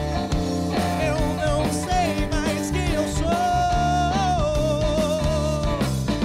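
Rock band playing live: a male singer over electric guitars and a drum kit. The melody holds one long note about halfway through.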